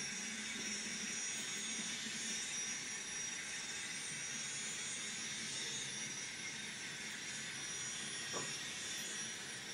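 Sound decoder in an N scale Union Pacific GTEL gas-turbine locomotive model playing a steady turbine whine and hiss through its small speaker as the model runs, with a single short click about eight seconds in.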